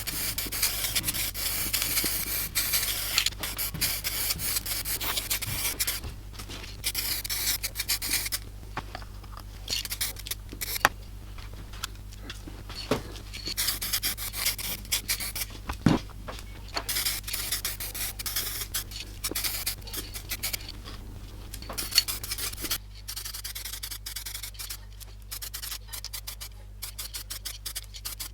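Scraping and rubbing strokes in uneven spells, with a few sharp knocks. About three quarters of the way through, the strokes turn quick and regular.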